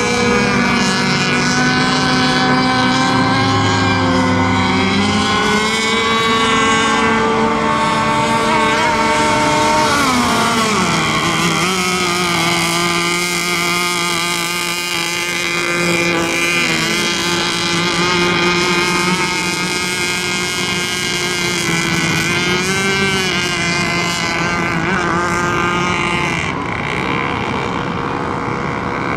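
Several radio-controlled racing boats running at speed on the water, their motor notes overlapping and sliding up and down in pitch.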